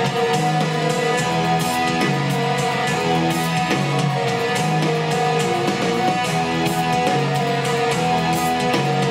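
Music with guitar, played from a laptop through a pair of homemade small box speakers driven by a DIY USB DAC and amplifier.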